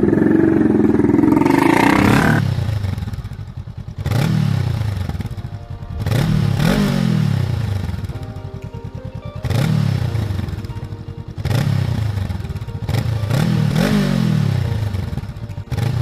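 Honda Rebel 500's 471cc liquid-cooled parallel-twin engine revved through its exhaust several times, each blip climbing in pitch and then dropping back toward idle, every two to three seconds. A loud rush of a motorcycle passing fills the first two seconds.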